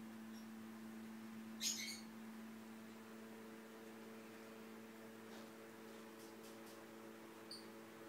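Faint steady electrical hum, with a brief scratchy rustle of a cat moving against the other cat and the blanket about two seconds in, and a few faint ticks later.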